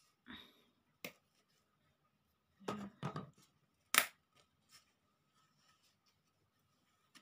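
Thin wooden craft pieces being handled and fitted together, giving a few short sharp clicks and snaps. There is a brief rattle of clicks just before three seconds in, and the loudest snap comes about four seconds in.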